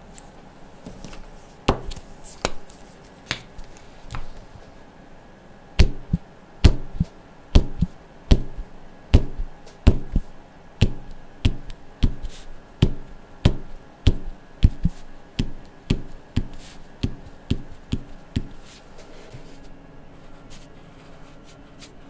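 Black felt-tip marker tapped again and again onto paper to make dots, each dab a sharp tap. A few scattered taps come first, then a steady run a little faster than one a second that stops a few seconds before the end.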